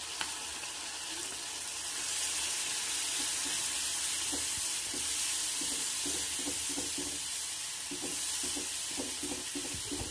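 Ground tomato paste sizzling in hot sesame oil in a kadai, freshly poured in and stirred with a wooden spatula, which gives repeated scraping strokes over the steady sizzle in the second half.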